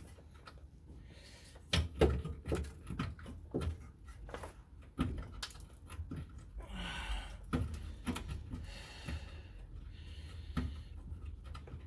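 Hand tool working a rusted bolt loose, giving irregular sharp clicks and knocks, the loudest about two seconds in.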